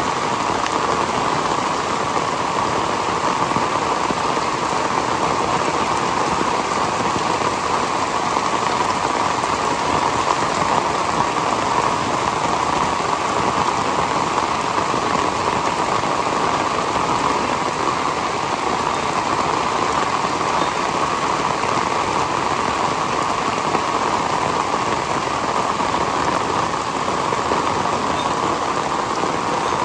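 Heavy, torrential rain falling steadily: a dense, even hiss of drops hitting surfaces, with no gusts or thunder breaking it.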